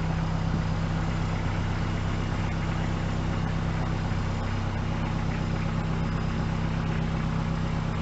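Compact loader tractor's engine running steadily at low revs as the tractor creeps forward.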